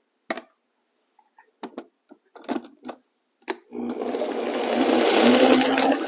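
A few knocks and clicks as the lid is set on a Vitamix blender jar. About four seconds in the blender motor starts and runs, chopping fresh spinach leaves into the blended grapes, with a steady hum whose pitch rises a little near the end.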